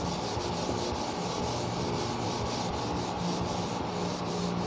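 A cloth duster rubbing back and forth across a whiteboard in quick, even strokes, wiping off marker writing.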